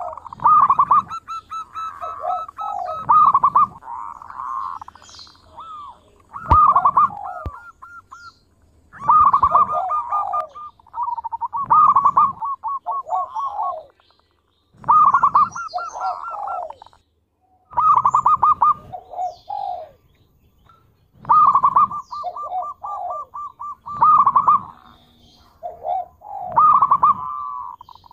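Zebra dove (perkutut) singing: a short phrase of quick cooing notes, repeated every two to three seconds.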